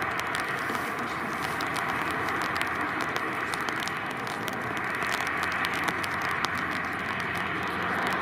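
An ATR 72-202's two turboprop engines running with a steady drone as the airliner rolls along the runway for takeoff, with crackling clicks throughout.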